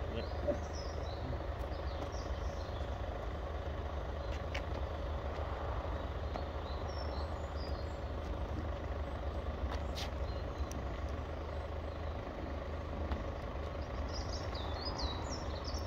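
Steady low rumble of a road vehicle waiting, with a faint steady hum, and a few short bird chirps.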